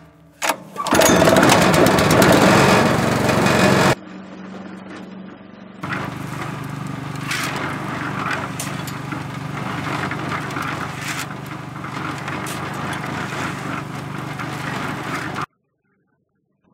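Honda single-cylinder four-stroke petrol engine on a cement mixer starting about a second in after a couple of clicks, and running loudly close up. After a cut the mixer runs steadily with its drum turning, the engine note under scattered clicks and rattles, then cuts off suddenly near the end.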